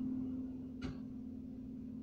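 A steady low hum with a single sharp click a little under a second in.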